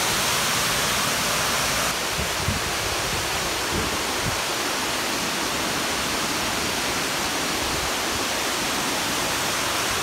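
Water pouring over the Nagashino weir's dam face: a steady, dense rush of falling water.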